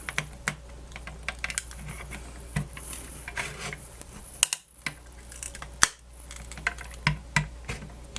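Irregular clicks, taps and light scrapes of hand tools and plastic parts as a Grundig FR-200 radio's casing and glued-in speaker are worked loose, over a steady low hum. The sharpest clicks fall about halfway through and again about six seconds in.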